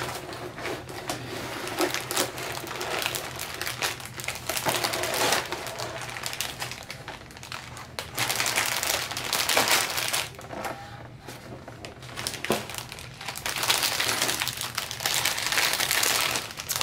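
Clear plastic bags of Lego pieces crinkling as they are handled and shuffled, with the small plastic bricks inside clicking and clattering in uneven bursts.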